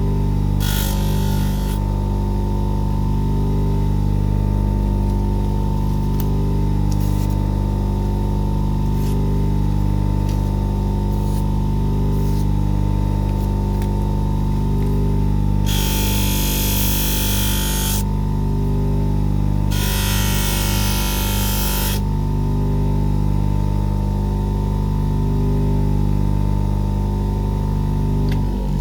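Electric workshop motor, likely a buffing mop, running steadily with a low hum. Twice, about midway, a two-second burst of hiss rises over it.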